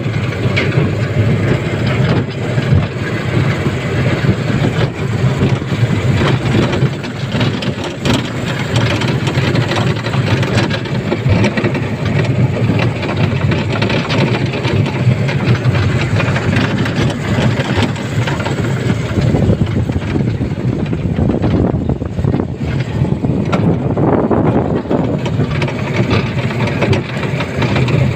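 Elevated sky train running, a steady loud rumble of the ride with no break.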